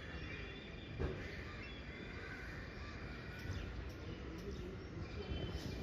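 Quiet outdoor ambience: a steady low background rumble with faint bird chirps, and a single soft knock about a second in.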